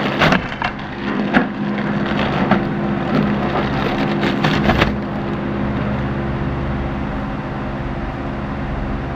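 Packaging being handled and opened, crackling and rustling for about the first five seconds, over a steady low hum that carries on after the handling dies down.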